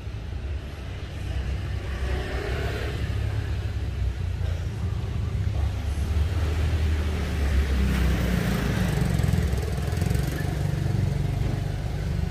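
Suzuki Grand Escudo XL7's V6 twincam 24-valve engine running at idle, a steady low hum with the bonnet open.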